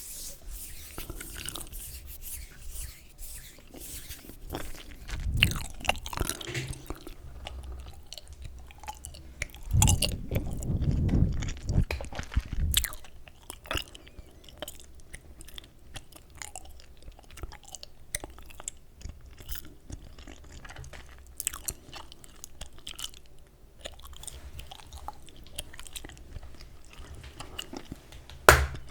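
Close-miked chewing gum: a string of soft, wet clicks, with louder, fuller stretches about five and ten seconds in and one sharp loud click near the end.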